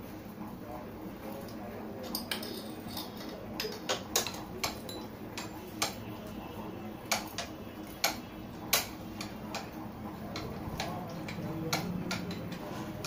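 Irregular sharp metal clicks and clinks, about a dozen spread over several seconds, from screws and a screwdriver being handled around a cast-iron stand.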